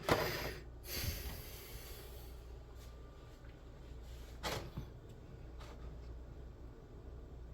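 Handling noises from the action figure and its packaging: a brief burst of rustling at the start, another rustle about a second in, then a few light clicks and knocks.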